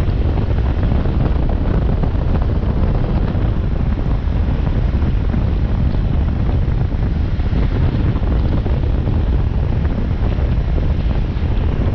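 Steady wind rumble on the microphone of a camera riding on a moving motorcycle, heaviest in the low end, with no distinct engine note standing out.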